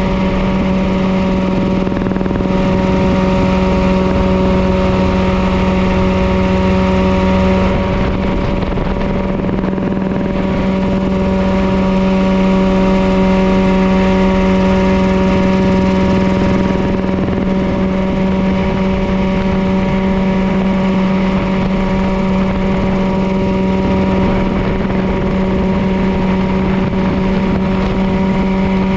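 Mirocopter SCH-2A ultralight coaxial helicopter in level cruise flight: its engine and rotors running steadily at one unchanging pitch, with a rushing noise of air underneath.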